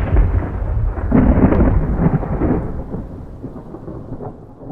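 Thunder rumbling, growing duller and quieter until it dies away.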